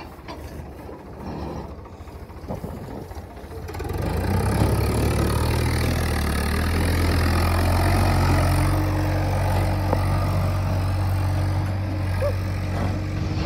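Swaraj 855 tractor's three-cylinder diesel engine hauling a loaded trolley. It is fainter at first, then about four seconds in it grows louder and runs steadily under load.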